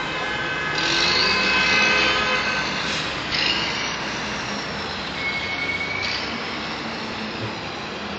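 Loud city street noise of traffic and vehicle engines, with a steady hiss. Several high steady tones sound over it for about the first three seconds, then a single shorter one around the middle.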